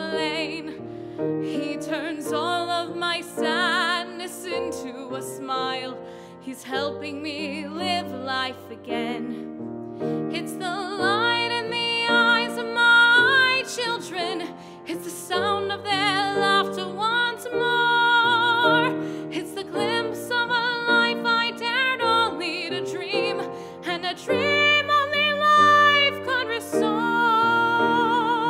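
A solo singer holding long sung notes with wide vibrato over grand piano accompaniment.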